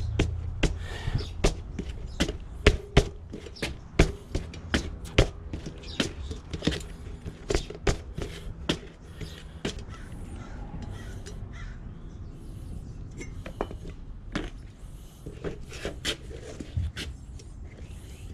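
Irregular sharp clicks, taps and knocks from a mountain-bike tubeless tyre and rim being handled and worked on the wheel. They come thick and fast for about ten seconds, then thin out to a few scattered knocks.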